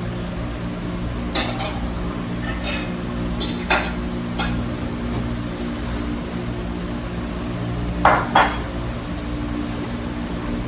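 A few light clinks and knocks of small objects being handled, the loudest pair about eight seconds in, over a steady low hum.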